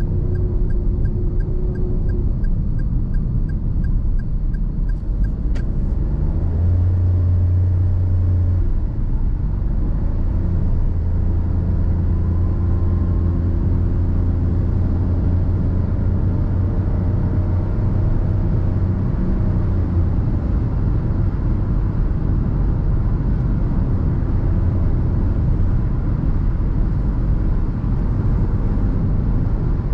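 Inside the cabin of a 2021 Perodua Ativa with a 1.0-litre three-cylinder turbo, cruising at highway speed: steady tyre and road noise with a low engine drone that grows stronger about seven seconds in. For the first five or so seconds a turn-signal indicator ticks rapidly and evenly, then stops.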